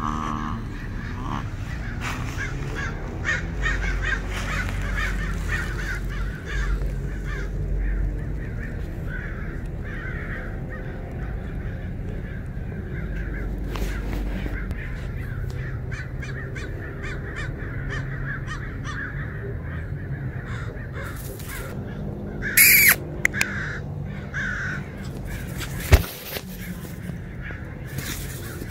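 Birds calling over and over in the background. A loud short sound comes about three-quarters of the way through, and a single sharp click a few seconds later.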